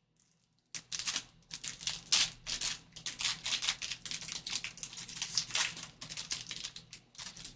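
Foil wrapper of a 2023 Panini Certified Football trading-card pack being torn open and crinkled by hand, a dense run of rapid crackling rustles starting just under a second in.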